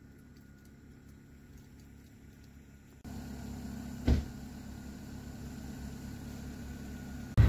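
Hand breaking a thin skin of ice on a water barrel: one short, sharp crack and splash a little after four seconds in, over a steady low rumble.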